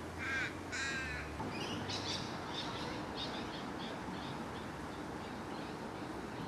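A crow cawing: two harsh caws near the start, then a run of shorter calls that grow fainter and die away over a couple of seconds.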